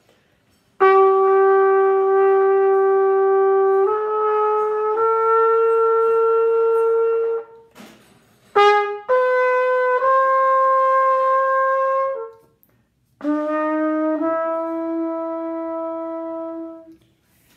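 Trumpet playing a slow melody of long held notes, each sustained for one to three seconds and stepping to a neighbouring pitch. The notes come in three main phrases with short gaps between them, and a quick flurry of short notes comes about eight seconds in.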